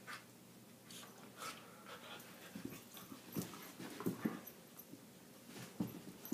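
Chocolate and black Labradors play-wrestling: short, low dog noises and scuffling on carpet, coming in irregular bursts that are loudest a little after the middle and again near the end.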